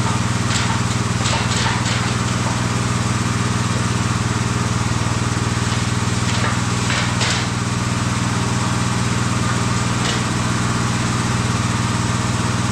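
Plasma cutter cutting through steel: a steady, loud buzzing hiss from the arc over a deep electrical hum, with a few faint crackles along the way.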